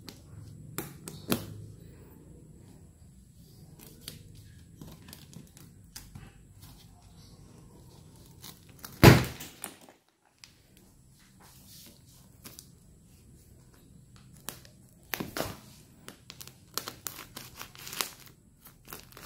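Scissors cutting through tough plastic strapping bands on a plastic-wrapped clothing bale: scattered sharp clicks and snips with crinkling of the plastic wrap, thickest near the end. About halfway through comes one much louder knock.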